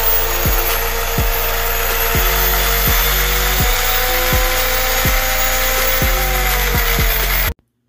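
Intro background music with a steady low beat under a dense, gritty noise texture and a held tone, cutting off abruptly near the end.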